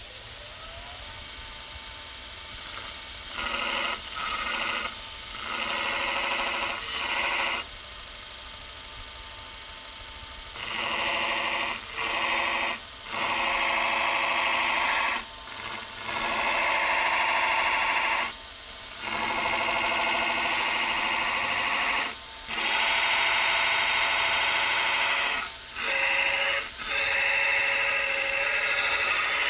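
Belt grinder running, with the workpiece pressed to the belt in repeated passes of one to four seconds each, separated by short breaks where only the motor is heard.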